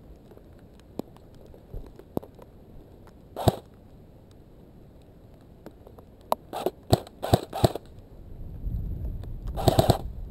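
Scattered sharp clicks and snaps, with a quick run of about six a little past six seconds in and a denser cluster near the end. Low wind rumble on the microphone builds in the last couple of seconds.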